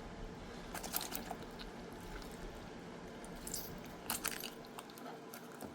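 Knife cutting through a raw chicken carcass and the wing joint being pulled apart: scattered small crunches and wet clicks, a cluster about a second in and another around four seconds.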